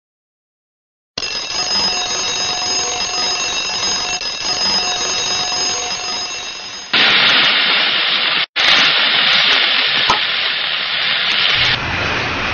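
An alarm clock ringing steadily, starting about a second in. After about six seconds it gives way abruptly to a loud, steady hiss that breaks off for an instant and then changes to a lower rumbling noise near the end.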